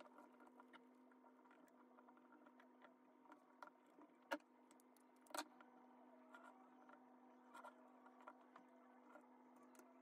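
Faint clicks and taps of small metal parts being handled and fitted onto a tiny RC car chassis, with two sharper clicks about four and five and a half seconds in, over a steady faint hum.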